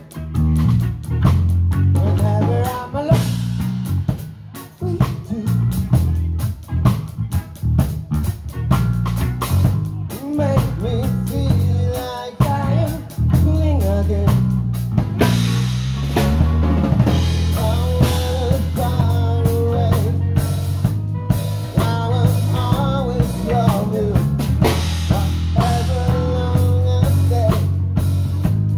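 Live rock band playing an instrumental passage: a lead line with bending notes over bass and a drum kit keeping a steady beat.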